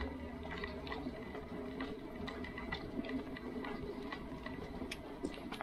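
Background ambience of a busy walkway: scattered light clicks and taps over faint distant voices and a low steady rumble.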